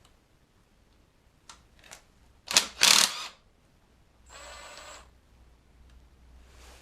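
Mechanical handling sounds: a few light clicks, two loud clattering scrapes about two and a half and three seconds in, then a brief whirr lasting under a second.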